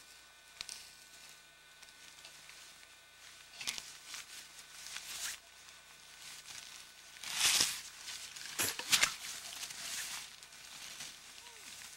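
Rustling and scraping of an overloaded backpack's fabric and straps, with crunching on snowy gravel, as a person strains under the load and tips forward onto hands and knees. A louder burst of rustling comes about seven and a half seconds in, followed by a few sharp clicks.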